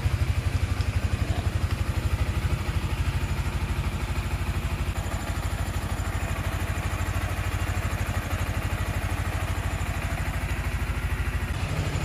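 Yamaha Sniper 155R's single-cylinder four-stroke engine idling steadily with an even, rapid putter.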